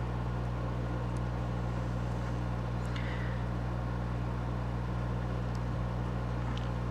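Steady low hum, unchanged throughout, with a few faint light ticks from small parts being handled.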